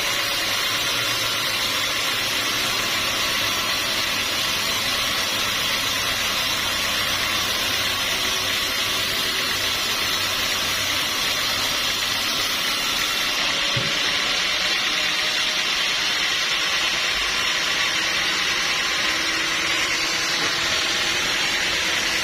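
Sawmill machinery running steadily, an even mechanical hiss and hum with no breaks. About thirteen seconds in, the highest part of the hiss drops away.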